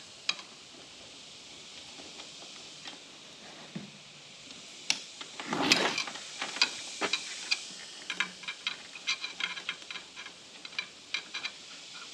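Small metallic clicks and ticks of a hex (Allen) key turning a short bolt into a rack mounting block, with one louder handling noise about six seconds in and a quicker run of ticks near the end.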